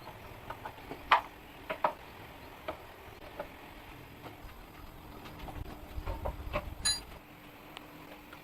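Irregular clicks and knocks of tools and metal parts being handled, with a low rumble building toward the end and a single ringing metallic clink about seven seconds in.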